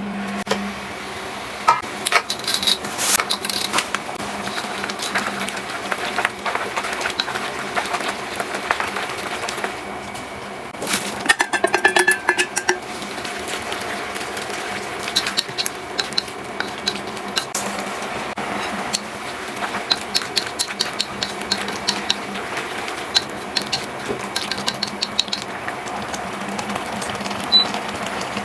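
Kitchen clatter: utensils clicking and clinking against pots and dishes, with a cluster of ringing clinks about eleven seconds in.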